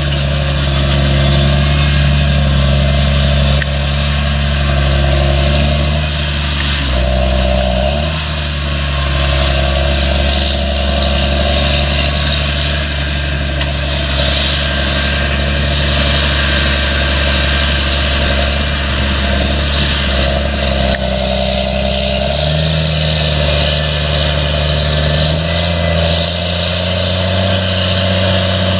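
An engine running steadily, its pitch shifting in small steps a few times.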